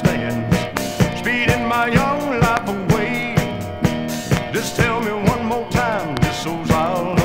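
1970s Southern rock band recording playing: an instrumental passage with drums keeping a steady beat, about two hits a second, under lead lines that slide and bend between notes.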